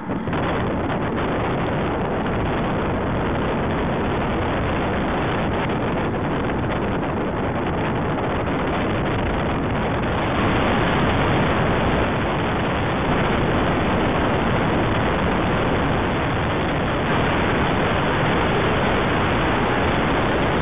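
Steady wind rush over the microphone of a camera mounted on a road bike riding at speed, a little louder about halfway through.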